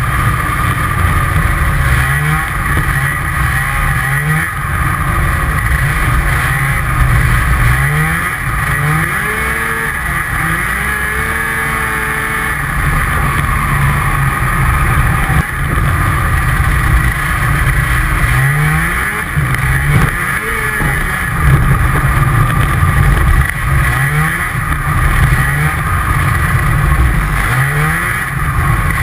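Snowmobile engine running under way across snow, its revs rising and easing off again and again, with the deepest dip and climb in pitch a little before the middle.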